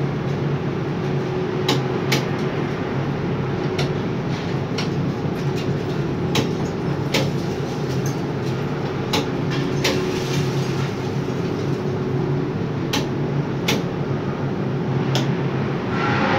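Steady machinery drone of a hot metal overhead crane, heard from inside the operator's cabin, with a low hum and irregular sharp clicks and knocks every second or so. Near the end a hissing noise swells in.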